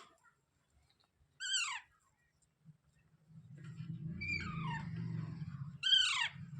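Parrot giving short shrill calls that sweep steeply down in pitch: one about a second and a half in, fainter ones in the middle, and a loud one near the end. From about halfway through, a low rumbling noise runs underneath.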